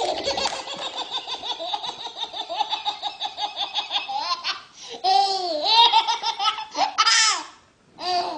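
A baby's belly laugh: a long, rapid run of laughter, then louder, high squealing laughs that rise and fall from about five seconds in, with a short break near the end.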